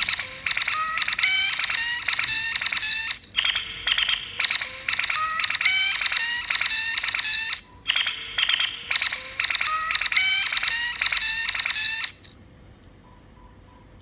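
Electronic sound effect from a sound module fitted in a Zaku model head: a rapid pulsing pattern with stepping beep tones, played through three times and stopping about twelve seconds in.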